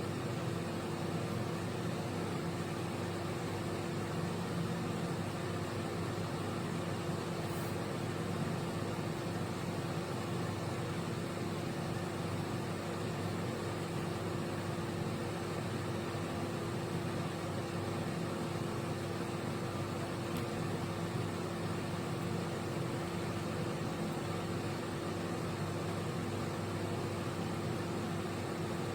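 Candy Smart CMG2071DS microwave oven running: a steady hum with one constant low tone over an even whir, unchanged throughout.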